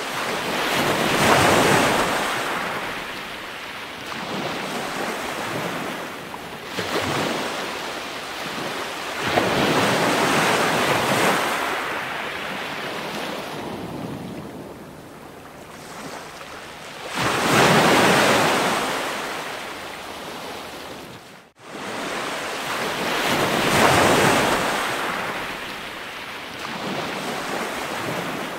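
Ocean waves washing in and drawing back, each surge rising and falling over a few seconds, with a sudden brief break about two-thirds of the way through.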